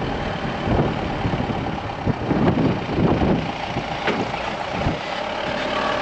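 Jeep's engine running as it drives along, with steady road and wind noise and irregular low rumbles.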